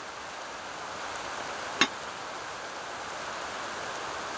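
Steady rain falling, an even hiss, with one sharp click a little under two seconds in.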